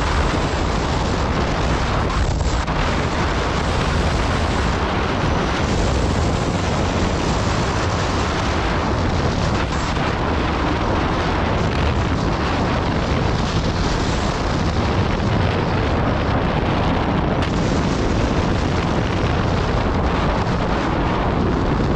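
Loud, steady wind noise buffeting the camera microphone on a motorcycle at cruising speed, with the low drone of the Honda CBR650R's inline-four engine underneath.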